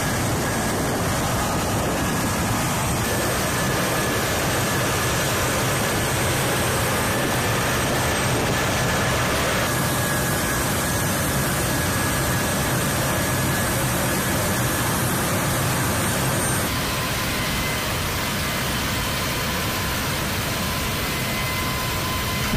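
Steady rush of a military cargo jet's turbines running on the flight line, with thin high whines held over it. The mix changes abruptly twice, about ten and seventeen seconds in.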